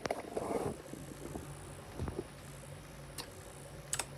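Faint steady hum of a desktop PC running, with a few short light clicks.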